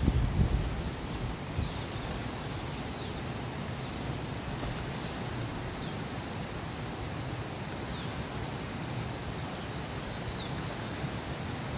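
Steady rushing of river water and wind, with wind buffeting the microphone in the first second or so. A thin high steady tone runs underneath, and a few short high falling chirps come every couple of seconds.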